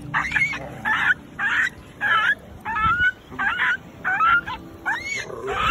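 A reactive Pomeranian yapping on its leash: a steady run of short, shrill yaps, about two a second.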